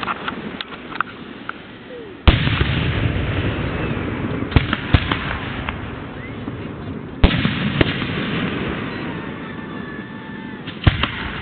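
Aerial fireworks display: two loud shell bursts about two and seven seconds in, each followed by a long rolling echo, with smaller pops between them and a quick cluster of cracks near the end.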